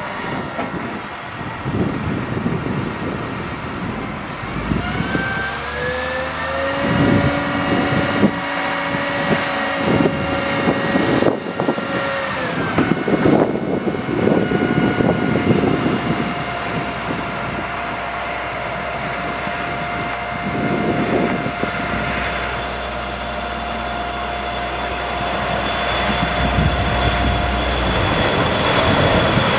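A 2001 GMC C7500 digger derrick truck running its hydraulics: the engine revs up about five seconds in with a steady whine while the boom and auger move, and drops back about twelve seconds in. Near the end an airplane passing low overhead builds to a rumble with a high whine.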